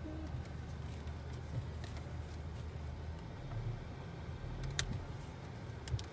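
Steady low hum of the 2013 Hyundai Elantra's four-cylinder engine idling, heard from inside the cabin. Two sharp clicks about a second apart near the end.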